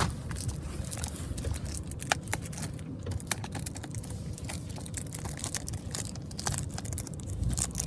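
Irregular clicks and rustling of a plastic Blu-ray case being handled and worked open, over a low handling rumble on the microphone.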